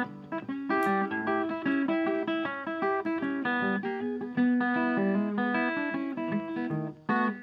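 Background music: acoustic guitar playing a quick plucked and strummed melody.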